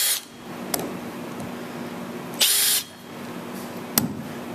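Electric drill-driver whining as it turns a bit in silicon bronze Frearson-head wood screws in a boat's plywood bottom. A run stops just after the start and a second short burst comes a little past the middle, with a sharp click near the end.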